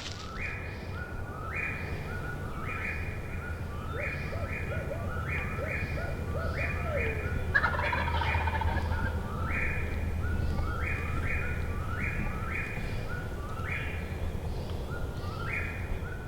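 Wild turkey gobbling in the spring woods, a short rattling burst about four seconds in, while a songbird repeats the same short phrase over and over, all over a steady low hum.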